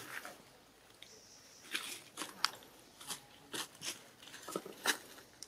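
Long-tailed macaque's mouth clicking and crunching: about a dozen sharp, irregular clicks, a couple of them louder than the rest.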